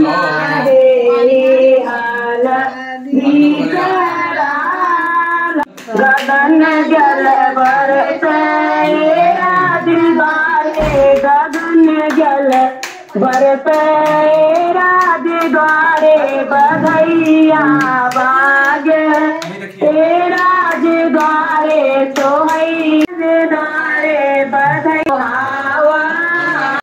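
A woman singing Kumaoni shakunakhar, the traditional auspicious songs of rites and ceremonies, in long held, wavering notes, played over a phone through a loudspeaker. A few short clicks and a low thump come about halfway through.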